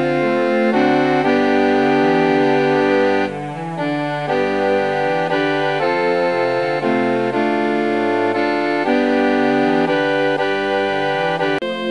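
Instrumental background music: sustained chords held over a stepping bass line. It breaks off abruptly just before the end, where another piece starts.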